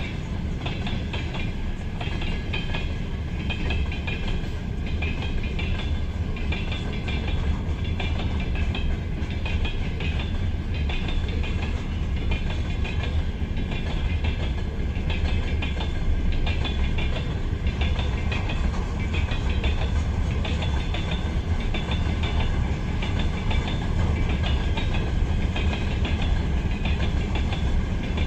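Freight train of gondola cars rolling past, the wheels clattering over the rail joints in a steady repeating rhythm over a continuous low rumble.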